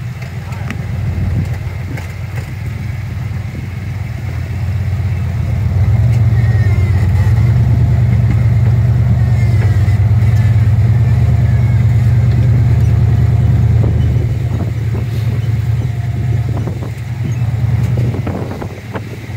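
Rock crawler's engine running under load as it climbs a steep rock ledge, the revs held higher for about eight seconds in the middle, then easing off and picking up again briefly near the end.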